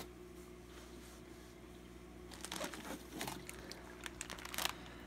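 Plastic fish-shipping bag crinkling as it is lifted out of a styrofoam box and handled, in scattered crackles over the second half, over a steady low hum.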